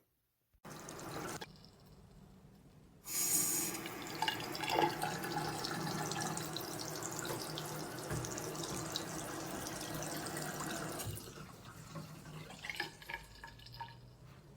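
Waterfall-spout bathroom faucet running into the sink basin from about three seconds in, as a steady even splash. It shuts off about eleven seconds in, leaving drips and water draining from the basin.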